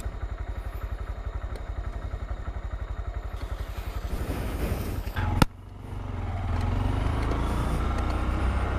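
Motorcycle engine idling with an even, rapid pulse. About five seconds in there is a sharp click, and after it the engine runs louder and steadier.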